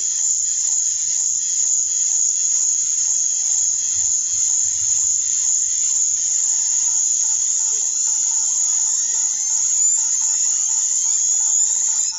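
A loud, steady, high-pitched buzzing hiss that stops suddenly at the end.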